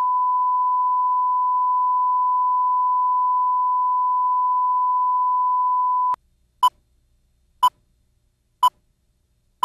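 Broadcast line-up test tone: a steady, single-pitch 1 kHz reference tone held for about six seconds, which cuts off suddenly. Short beeps at the same pitch follow, one each second.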